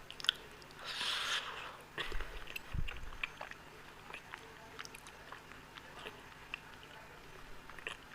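Close-up eating sounds: chewing and biting with many small wet mouth clicks, a short breathy rustle about a second in, and a couple of low thumps between two and three seconds.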